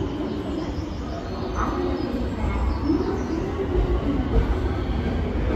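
Railway station platform ambience: a steady low rumble from trains, with echoing background noise under the station roof.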